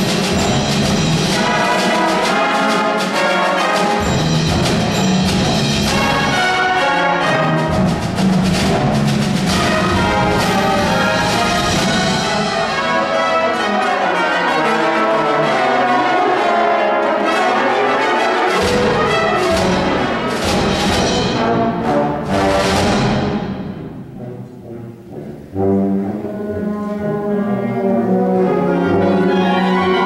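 High school concert wind band of woodwinds, brass and percussion playing at full strength, brass to the fore. A little past three-quarters of the way through, a crash dies away and the band drops to a brief hush for about two seconds before coming back in.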